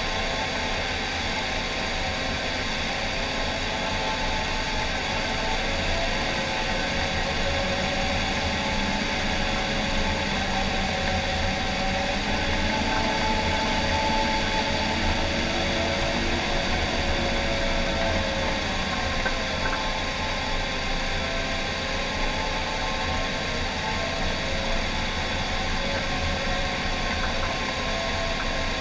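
John Deere 750K crawler dozer at work, its diesel engine running steadily as the blade pushes a load of dirt, with a whine above the engine that drifts up and down in pitch.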